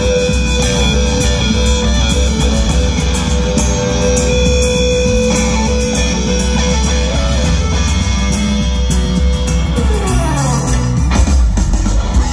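Live rock band with an electric guitar playing lead, amplified through a PA: a long held note over the first few seconds, then about ten seconds in a slide down in pitch.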